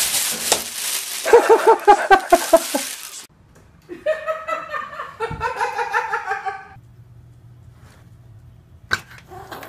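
People laughing in rapid pulsed bursts, in two stretches with a pause between, and a sharp click near the end.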